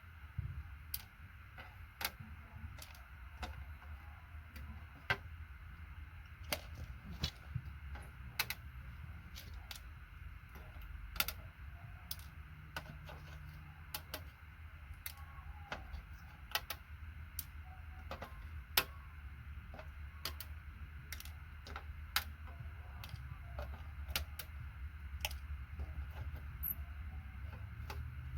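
Side cutters snipping LED leads off a circuit board: sharp, irregular clicks about a second or two apart, over a low steady hum.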